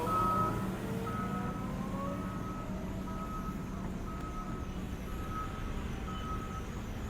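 Reversing alarm on a road-construction vehicle, beeping about once a second, over the steady running of its engine.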